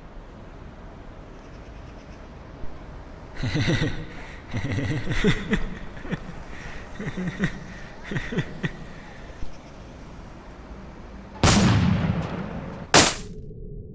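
Fight sound effects: a rough stretch of uneven bursts and strained noises, then two loud gunshot-like blasts about a second and a half apart near the end, the first trailing off slowly.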